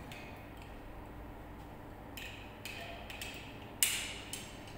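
Light metal clicks as a laryngoscope's metal blade and handle are handled and fitted together: about half a dozen short clicks from midway, with the sharpest one near the end as the blade locks onto the handle and switches on its light.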